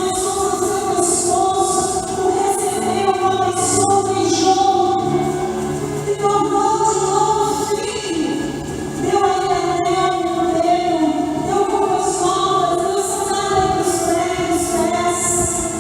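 Church choir singing a Christmas cantata song in long held notes, over a sustained musical accompaniment.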